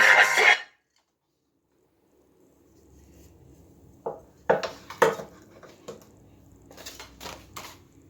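Rap music cuts off suddenly within the first second. After a pause, there is a run of about seven light clinks and knocks from hard objects being handled, the strongest near the middle.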